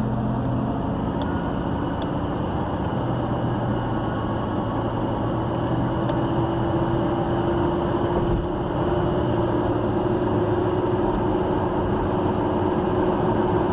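Car driving steadily along a road, heard from inside the cabin: a constant engine hum with tyre and road noise.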